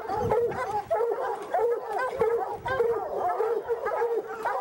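A pack of hunting hounds barking and baying nonstop at a treed mountain lion, many dogs' calls overlapping several times a second. This is the treeing bark that tells hunters the quarry is up the tree.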